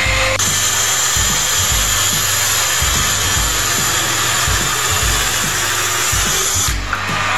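Circular saw cutting across a thick laminated 2x4 benchtop, a loud steady cut that changes in tone near the end. Just before it, a trim router's whine cuts off. Background music with a steady low beat runs underneath.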